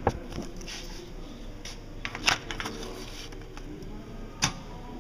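A paper time card rustling and scraping as it is fed into the slot of an old punch time clock, with a few sharp clacks, the loudest about two seconds in and another near the end.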